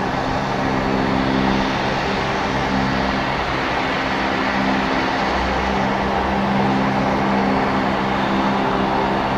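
Bombardier Q400 (DHC-8-402) twin turboprop, its Pratt & Whitney PW150A engines and six-bladed propellers running steadily as it begins its takeoff roll. A steady drone with a low propeller hum that swells and fades every few seconds.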